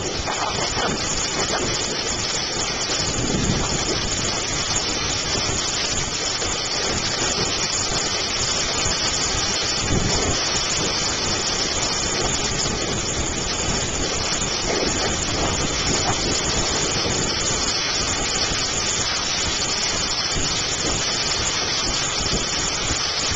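Heavy rain mixed with small hail falling in a steady, dense downpour.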